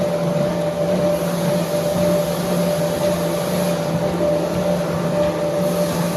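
Sawmill machinery running steadily: a constant mechanical drone with a steady low hum and a higher steady tone.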